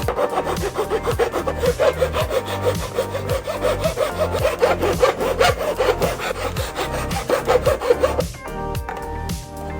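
A hand tool rasping back and forth in quick strokes, about three to four a second, stopping about eight seconds in. Background music with a steady beat runs underneath.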